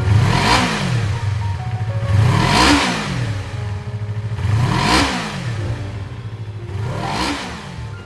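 Yamaha YZF-R25 / MT-25 parallel-twin engine blipped four times, about every two seconds, through an SP Tadao POWERBOX megaphone silencer, each rev rising and falling back to idle.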